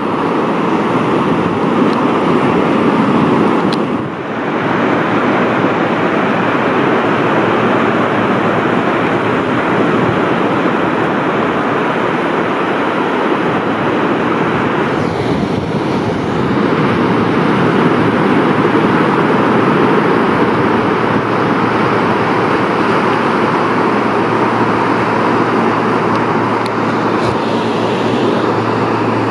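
Atlantic surf breaking on a sandy beach: a loud, continuous rush of waves, with a brief dip about four seconds in.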